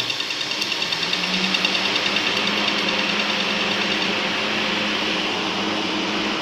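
Laser welding machine running: a steady hiss over a low hum, with faint rapid pulsing during the first couple of seconds.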